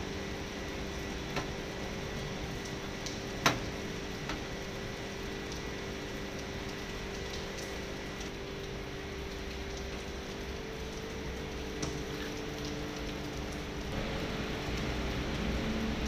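Steady mechanical hum under a few sharp plastic clicks and taps as the air conditioner's indoor unit and cover are handled. The loudest click comes about three and a half seconds in.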